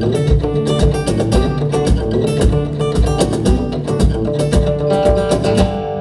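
Live instrumental intro: acoustic guitar strumming over a steady low beat, about three beats a second, thinning out near the end.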